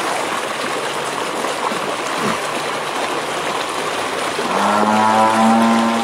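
Fast-flowing floodwater rushing and churning over a road, a steady rushing sound. A steady humming tone joins in for about the last second and a half.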